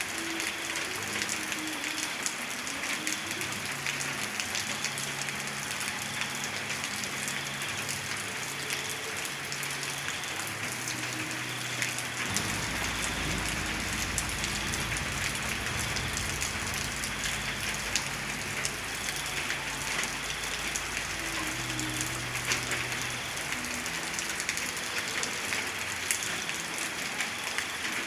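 Steady heavy rain falling on a surface: a dense, even hiss with single drops ticking through it. A low rumble comes in about halfway through and holds.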